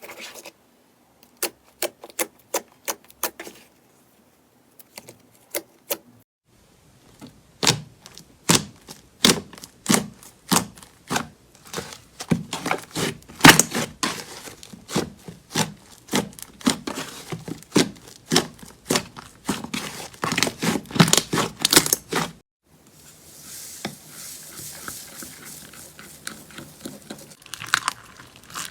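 Slime being squeezed and pressed by hand: a few sharp sticky clicks and pops at first, then a fast, dense run of them. After a brief gap a softer, crackly hiss follows.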